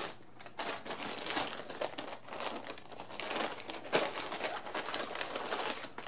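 Yarn subscription packaging being unwrapped: irregular crinkling and rustling of wrapping and a plastic bag being handled and pulled open.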